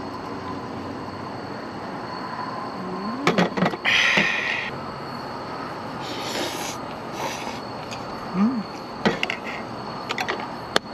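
Eating sounds at a table: wooden chopsticks clicking against stainless steel camping cups, and a short slurp about four seconds in.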